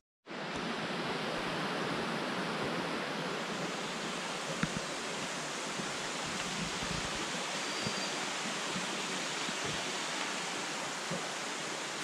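Mountain stream cascading down a rocky gorge: a steady, even rush of water that starts suddenly a moment in.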